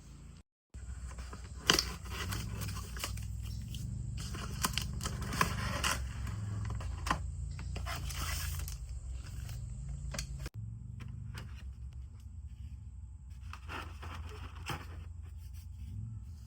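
Product packaging being unboxed and handled: irregular scraping, tearing and rustling, with scattered clicks and a sharp click about two seconds in.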